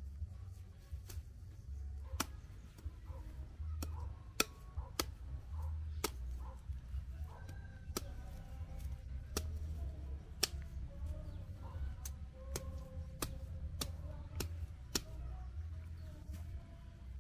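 Machete chopping cassava roots off the woody stem: about a dozen sharp, crisp strikes at uneven intervals, roughly one a second.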